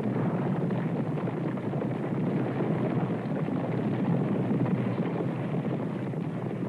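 A herd of horses galloping: many hooves drumming on the ground at once, blending into a continuous rumble with no separate beats. The recording is old, with the bass cut off.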